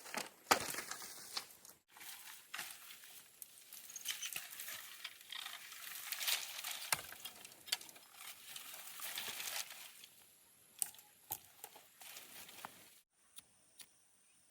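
Irregular rustling and crunching of dry vegetation being handled, with scattered sharp clicks. It stops abruptly near the end.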